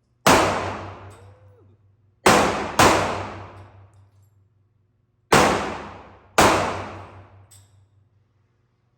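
Five pistol shots, irregularly spaced, each trailing off in a long echo. The second and third come about half a second apart.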